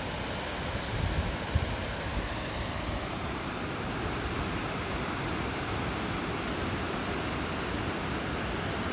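Waterfall rushing: a steady, even wash of falling water. A few brief low thumps about a second in.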